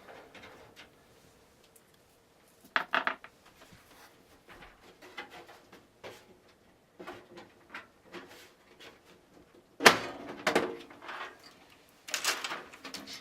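Thumb screws being unscrewed and a computer case handled: scattered small clicks and scrapes, with louder clattering knocks about three seconds in, around ten seconds and near the end.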